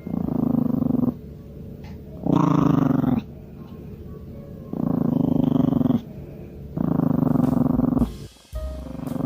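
A pet making a low-pitched rumbling sound in repeated stretches of about a second, with short pauses between them, about five times.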